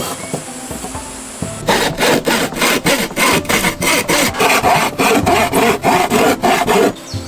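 Narrow-bladed hand saw cutting along a curved line through a wooden board in quick, regular back-and-forth strokes. The strokes start about a second and a half in and stop just before the end.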